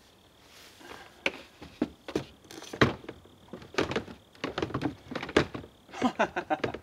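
Irregular knocks and clunks as a long metal pipe is handled and set against a quad ATV, with a quick run of rattling clicks near the end.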